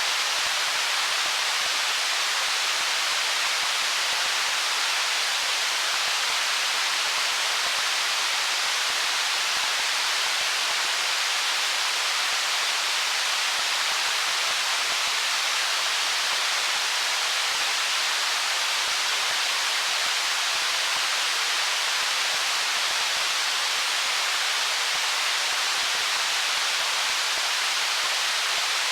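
Stream water flowing over stones, a steady, even hiss-like rush that sits mostly high in pitch, with no breaks or changes.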